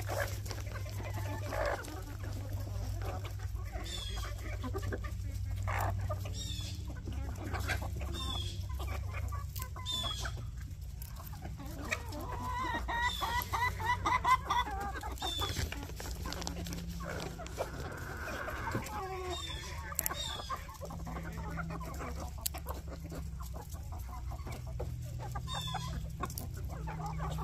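A flock of black chickens, hens and roosters, clucking as they forage, with a louder run of quick repeated calls about halfway through.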